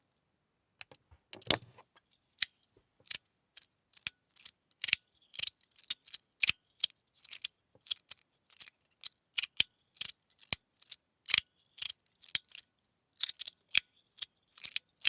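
Titanium tuning-fork fidget slider (Restless Studio Xia Mu X2) slid back and forth, giving sharp metallic clicks about twice a second. It is being played with an internal part taken out, which makes a clear difference to its sound.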